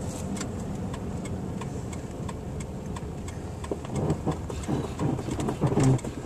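Vehicle running on a snow-covered road, heard from inside the cabin: a steady low rumble of engine and tyres with scattered light clicks, growing louder and more uneven in the last two seconds.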